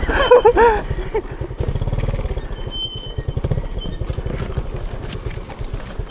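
Motorcycle engine idling with an even, rapid low pulse, heard after a brief voice in the first second.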